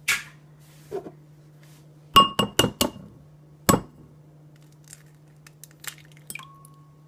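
An egg tapped against the rim of a ceramic mixing bowl to crack it: sharp knocks, four in quick succession and then one more, some leaving the bowl ringing briefly, followed by lighter ticks.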